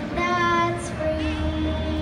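A girl singing a song into a microphone, amplified through PA speakers, with a flute holding a steady note under her voice in the second second.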